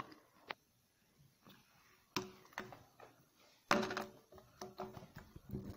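Scattered soft knocks, taps and clicks of handling at a table, with the loudest cluster a little past halfway. The phone filming is being moved and repositioned by hand.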